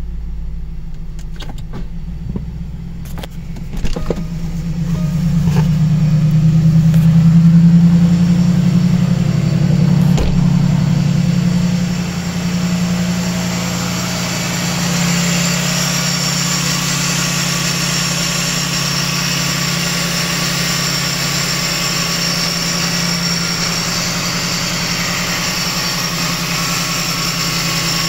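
Jaguar 3.5-litre V8 engine idling. A few sharp clicks come in the first seconds; the engine sound swells for several seconds and then settles to a steady idle with a light hiss over it.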